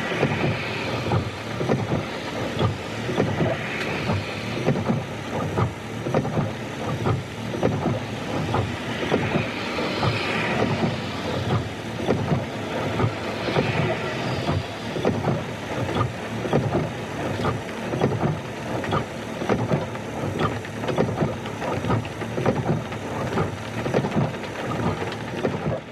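Rain pattering on a car windshield while the wiper blades sweep across it at slow speed, with a soft swish of the blades every few seconds.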